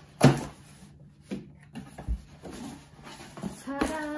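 Scissors cutting through the packing tape on a cardboard shipping box, with a sharp rasp about a quarter second in, followed by clicks, a low knock and rustling as the cardboard flaps are pulled open. Near the end a woman's voice sounds a held, humming note.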